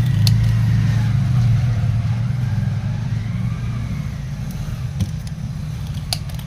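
A steady low machine hum that slowly fades, with a few sharp clicks, the snaps of a spring-loaded desoldering pump being fired on the IC pins.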